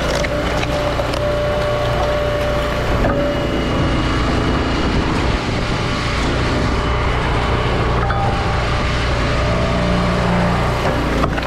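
Engine-driven firewood splitter running steadily, with a few sharp cracks as wood splits or is knocked about.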